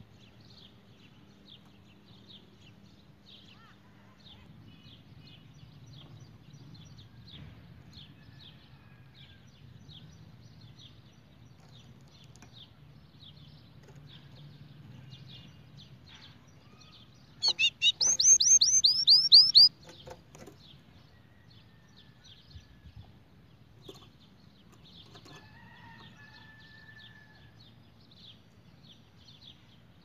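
White canary singing: soft, high chirps come and go, and a little past the middle it gives one loud trill of fast falling notes, about two seconds long.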